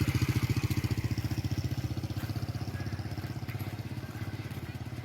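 A small motor vehicle's engine puttering with a fast, even beat, fading steadily as it moves away.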